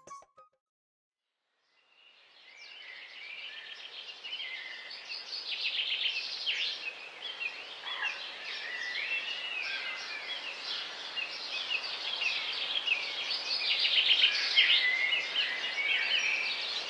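Many birds chirping and calling together over a steady hiss, fading in after a second or two of silence and growing louder.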